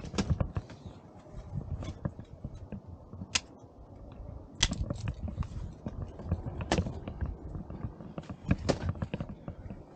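Uneven crunching footsteps on snow and ice, sharp crunches coming at irregular intervals, with a low rumble underneath.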